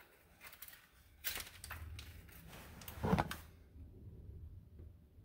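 Handling noises as a cordless driver is set against a screw in a steel strap: scraping and clicking, with one louder knock about three seconds in, then only a faint hum.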